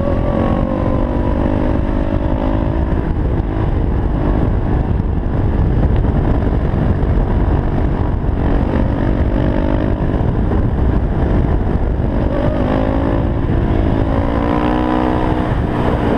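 Yamaha WR450F supermoto's single-cylinder four-stroke engine held at steady revs through a wheelie, the pitch easing off in the middle and picking up again with small rises, over heavy wind rumble on the helmet microphone.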